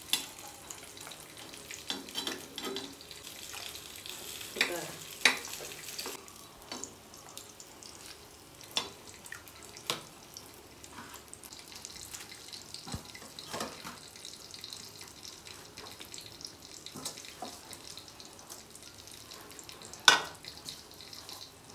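Scattered clinks and knocks of a steel spoon and pots being handled during stirring, over a faint steady hiss; one sharper metal knock near the end.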